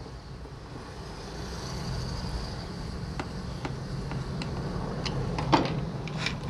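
Low rumble of passing road traffic, with a few light clicks and knocks as the unplugged, freshly reassembled Bosch angle grinder is handled; the loudest knock comes about five and a half seconds in.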